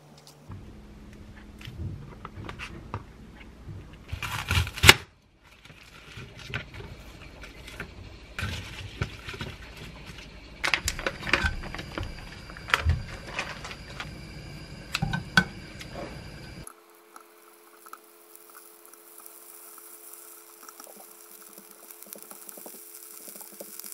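Kitchen prep sounds. Oyster mushrooms are torn apart by hand over a plastic tray, with light clicks and taps and one louder rustle about five seconds in. Then slices of duck meat are laid in a nonstick frying pan and separated with chopsticks: a few light taps over a faint steady hum.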